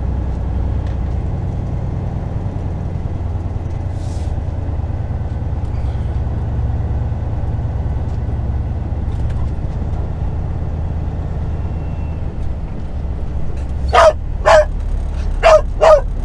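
Semi truck's diesel engine running with a steady low rumble, heard from inside the cab. Near the end a dog in the cab barks four times in quick succession.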